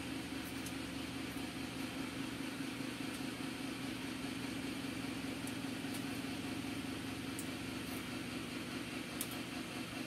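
Steady low machine hum with an even hiss over it, like a small appliance motor or fan running, with a few faint ticks.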